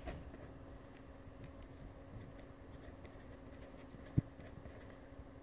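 Faint scratching of a pen or pencil tip writing letters on paper by hand, over a faint steady hum, with one soft knock about four seconds in.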